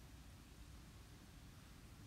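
Near silence: faint steady hiss of the recording's background noise.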